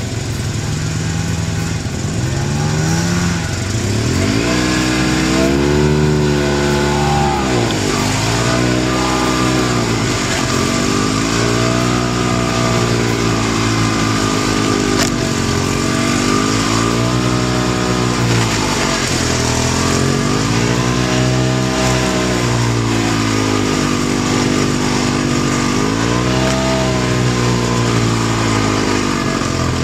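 Snowmobile engine running, its pitch rising and falling over and over, about every two to three seconds.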